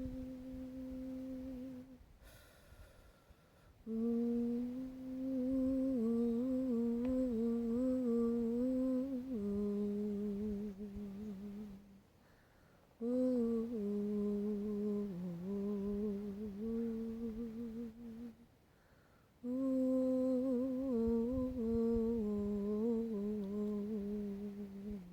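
A woman humming a slow, wordless melody in four phrases, with short breaks between them.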